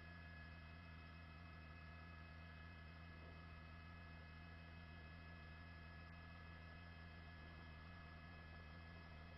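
Near silence with a faint steady electrical hum made of several constant tones.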